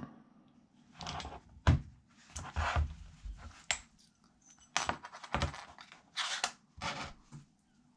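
Steel gears and washers of a 125 cc pit bike gearbox clinking as they are slid off a gearbox shaft by hand and set down on a work mat: a string of separate sharp metallic clicks and short rattles.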